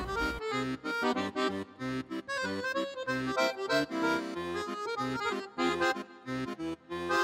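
Background music: a solo accordion playing a lively, quick-moving Paris-style melody over a pulsing bass line.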